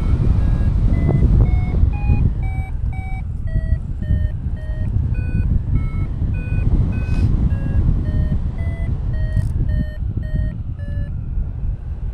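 Paragliding variometer beeping its climb tone: short beeps about three a second, their pitch stepping up and down as the climb rate changes, which means the glider is climbing in lift. Under the beeps is a steady rush of wind on the microphone.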